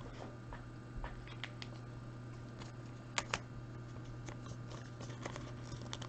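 Trading cards being handled: scattered light clicks and taps of card stock and plastic, with two sharper clicks a little over three seconds in, over a steady low hum.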